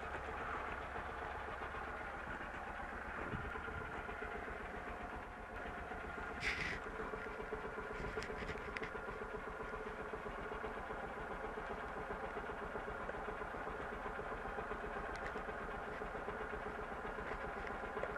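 Motorcycle engine idling steadily, with a single sharp click about six and a half seconds in.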